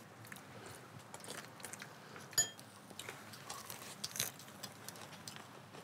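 Tableware clinking at a meal table: utensils against bowls and dishes in small scattered clicks. One sharp, ringing clink comes a little over two seconds in.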